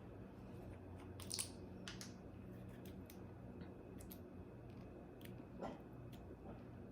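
Faint, scattered clicks and light handling noises as a small cosmetic moisturizer container is opened and its cream handled.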